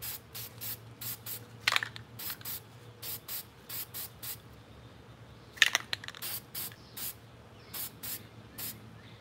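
Aerosol spray paint can hissing in many short bursts, about two or three a second, as fluorescent pink paint is dusted onto a fishing rod. Two louder, sharper sounds come about two and six seconds in.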